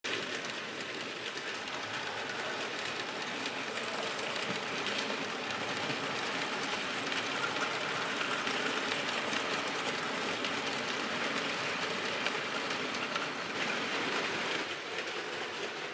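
Model railway freight train running along the track: a steady rolling rattle of small wheels on rails, with fine clicking as the wagons pass over joints and pointwork.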